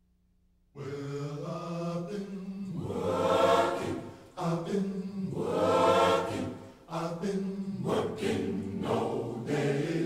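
A choir singing slow, held chords, starting about a second in and swelling twice.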